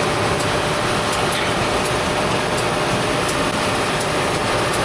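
Tractor and round baler running steadily under a continuous, even mechanical noise, with a faint regular tick a little more often than once a second.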